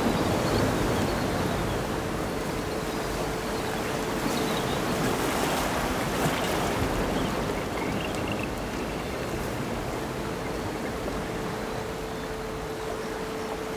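Ambient electronic performance soundscape: a steady surf-like wash of noise, with a faint held tone that fades out and returns near the end.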